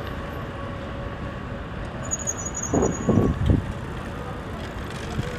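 City street ambience: steady traffic noise, with a brief high-pitched squeal about two seconds in, then three loud, short low sounds in quick succession just after.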